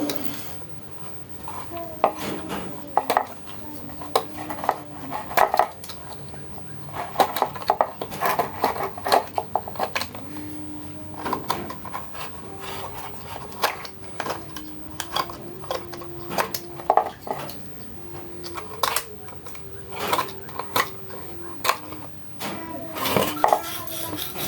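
Irregular clinks and knocks of hard objects being handled, with a faint wavering tone underneath.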